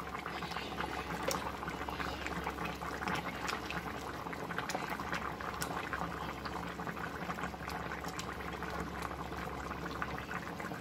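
A pui shak and fish-head curry boiling hard in a metal karahi: a steady bubbling with a dense crackle of small pops.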